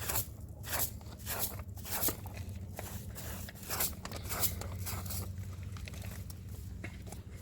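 Repeated crunching, about two strokes a second, over a steady low hum.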